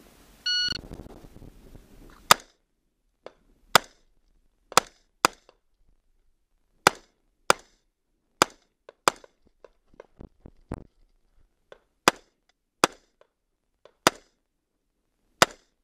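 A shot timer's start beep, then a rifle fires about thirteen separate shots at an uneven pace, roughly one a second, with fainter clicks and knocks between them.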